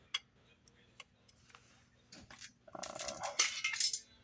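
Automotive foglight housings being handled. A few light clicks come in the first two seconds, then a louder patch of clatter and rustling about three seconds in.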